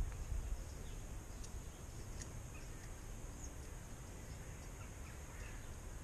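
Outdoor garden ambience: wind rumbling on the microphone, strongest in the first second, with a few faint short bird chirps and occasional light clicks over a thin steady high tone.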